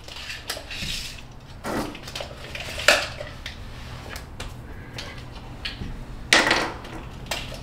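Steel tape measure being handled: a run of short clicks and metallic rattles from the blade and case, with a sharp click about three seconds in and a louder scraping rattle about six and a half seconds in.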